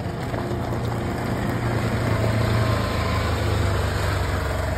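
Polaris side-by-side utility vehicle's engine running as it drives slowly past, the steady low hum growing louder about two seconds in.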